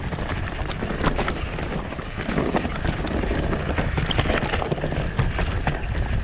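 Mountain bike riding fast down a rough dirt trail: wind buffeting the microphone as a steady low rumble, tyres rolling over dirt and twigs, and frequent clattering knocks from the bike over bumps.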